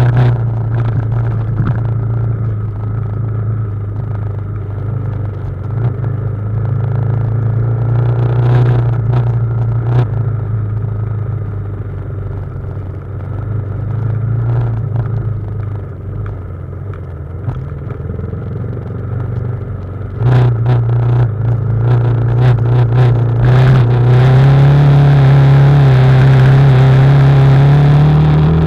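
BMW G310GS single-cylinder motorcycle engine running at low revs on a downhill off-road descent, with sharp knocks and clatter scattered through. The revs climb steadily over the last few seconds.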